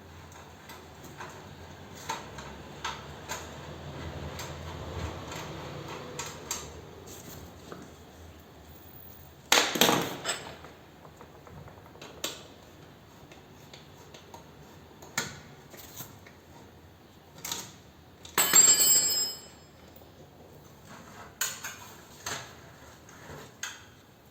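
Hand tools and metal parts clinking and knocking as a motorcycle exhaust is unbolted, with two louder ringing metal clanks about ten and nineteen seconds in.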